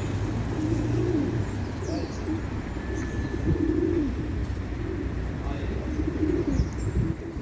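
A group of pigeons cooing. Low, rounded coos rise and fall in pitch, about one a second and overlapping, with faint high bird chirps above them.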